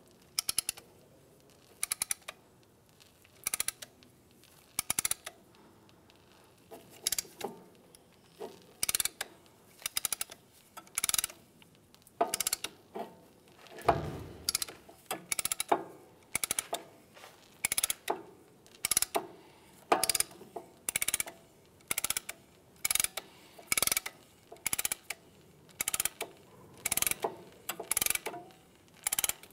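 Pump-style brake caliper piston compressor tool being worked handle-stroke by handle-stroke, its ratchet clicking repeatedly as it pushes the caliper piston back into its bore. The clicks come one or two a second at first and more quickly in the second half.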